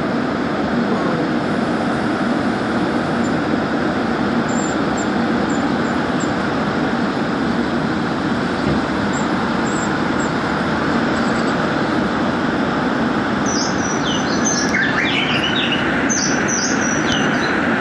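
Gwangju Metro Line 1 subway train running through a tunnel: a steady rolling noise from wheels and track, with a run of short, high-pitched squeals in the last few seconds.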